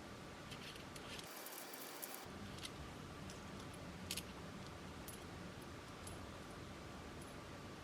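Faint, scattered light clicks and small rattles, as of small hard items being handled, over a steady low hiss.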